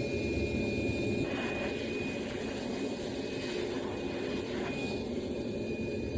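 Vacuum cleaner running steadily, with a thin high whine over its rushing noise, cleaning debris out of a speaker cabinet.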